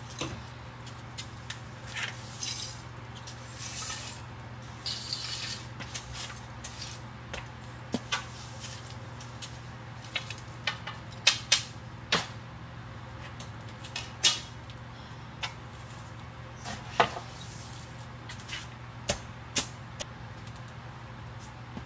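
Scattered clinks and knocks of hard items being picked up, moved and set down during a garage clear-out, some sharp and louder than others, over a steady low hum.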